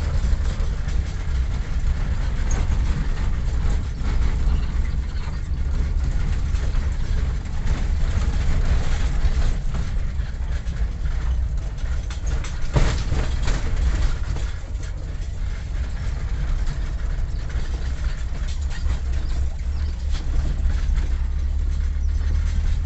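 Steady low rumble of a vehicle running, with a brief knock about thirteen seconds in.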